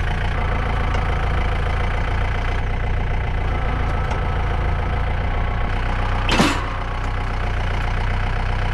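Tractor engine running steadily at idle, with one brief sharp noise about six and a half seconds in.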